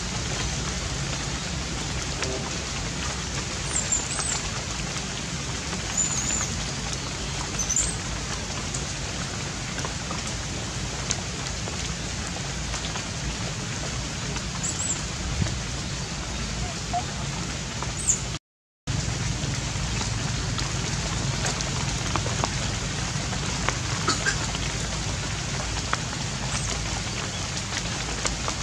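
Steady rain falling, an even hiss with scattered sharp drip ticks and a few faint short high chirps. The sound cuts out completely for a moment about two-thirds through, then the rain resumes.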